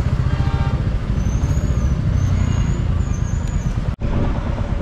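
Royal Enfield Classic 350's single-cylinder engine running at low road speed, its exhaust coming through as a fast, even low pulse under road and wind noise. The sound breaks off for an instant about four seconds in.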